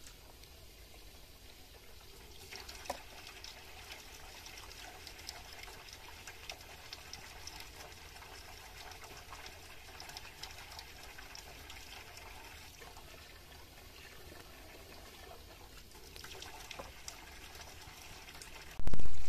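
Rice being rinsed by hand in water in a metal pot, with swishing, splashing and small clicks of grain and hand against the pot. Near the end comes a single loud thump.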